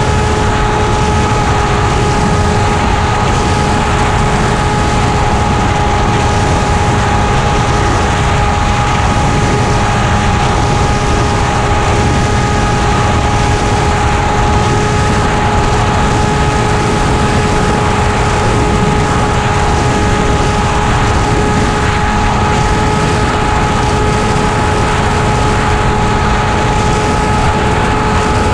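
Model airplane's motor and propeller running at a steady, unchanging pitch, heard from a camera mounted on the plane in flight, with wind rushing over the microphone.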